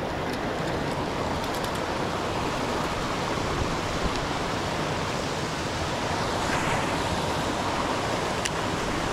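Creek water rushing steadily over a rocky bar, an even, unbroken rush, with a few faint ticks now and then.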